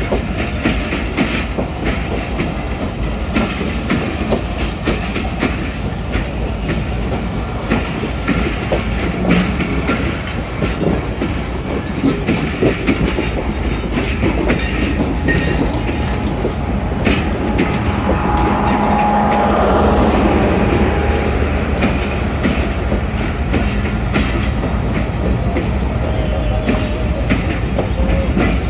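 Train running along the track: a steady rumble with the clatter of wheels on rails. A thin steady tone comes in for a few seconds about two-thirds of the way through.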